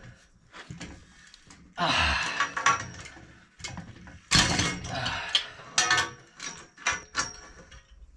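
Steel well pipe and pipe wrenches clanking and scraping as the sand point's pipe is worked: a run of irregular metallic clatters, the loudest about two and four seconds in, some followed by a brief high ring.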